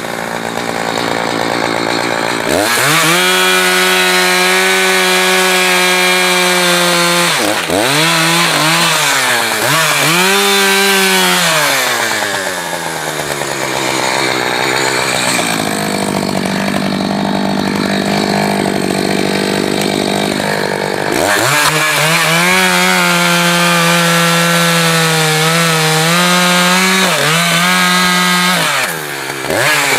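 Two-stroke Echo chainsaw running at high revs while cutting firewood. Its engine pitch dips and climbs again several times as the throttle is eased and opened. About halfway through it settles for several seconds into a steadier, quieter run.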